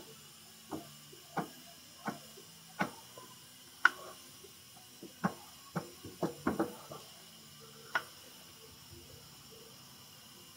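Spreader clicking and tapping while body filler is scooped up and pressed onto a car's wheel arch: about a dozen short, irregular taps, the sharpest about four seconds in, with a quick cluster around six to seven seconds.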